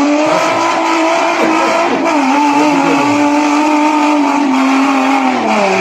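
Suzuki Jimny 4x4's engine revving high and held at a steady pitch as the vehicle climbs a muddy trail. The pitch dips slightly about two seconds in and falls near the end as the revs drop.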